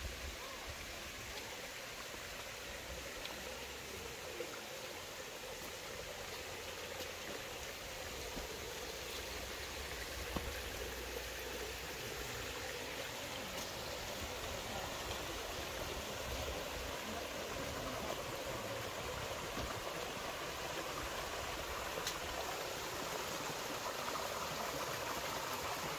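Small rocky stream trickling and splashing over stones into a pool with a little waterfall, a steady rush of water that grows gradually louder toward the end.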